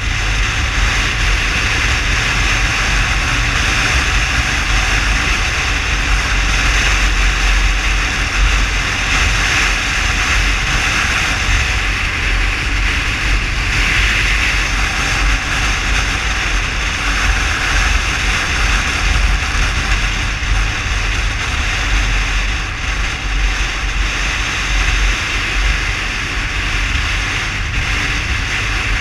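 Steady rush of wind on the microphone and road noise from a motorcycle riding at speed, with a deep rumble underneath and no change in pace.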